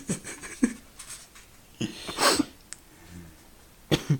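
People laughing in short breathy bursts, three or four times.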